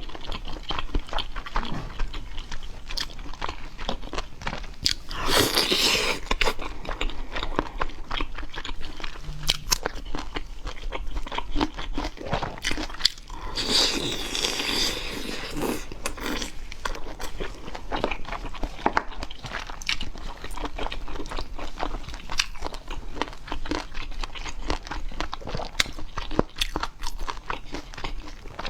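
Close-up eating sounds of seafood being bitten and chewed: a dense run of crunching and crackling bites, with two longer, rougher stretches around five and fourteen seconds in.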